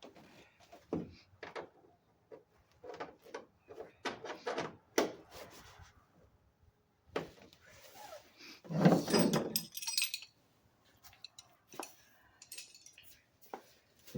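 Hand work on parts and tools: a run of short knocks and clicks, with a louder clattering rattle about nine seconds in.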